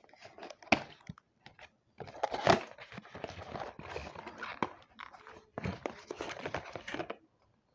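A rigid cardboard perfume box being handled and opened: rustling and crinkling of packaging with scattered clicks and taps, a few at first and then dense from about two seconds in until shortly before the end.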